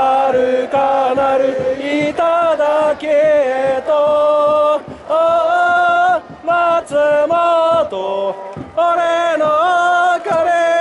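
Football supporters' section singing a chant in unison, many voices holding sustained notes in short phrases with brief breaks between them.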